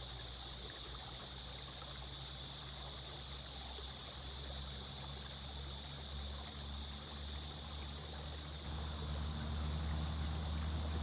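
Steady, unbroken rushing of water falling over a small waterfall close by, a hissing wash of noise. A low steady hum runs underneath and grows louder near the end.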